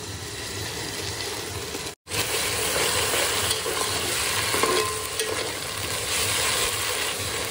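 Garlic paste sizzling in hot oil and fried onions in an aluminium pot as it is stirred in with a metal spatula. There is a brief break about two seconds in, after which the frying is louder.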